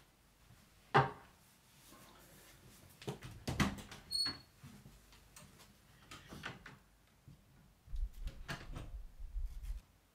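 A person walking out through a glass-panelled room door, with a sharp knock about a second in, clatter and a brief squeak around three to four seconds, and low thuds and shuffling near the end.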